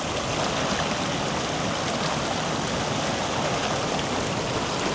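A small creek's water running in a steady rush.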